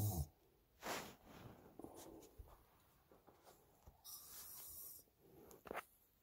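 A sleeping man snoring and breathing heavily, picked up by a phone microphone inside a truck cab: a low snore tails off at the start, a breathy exhale follows about a second in, then a hissing breath around four seconds in and a short sharp breath near the end.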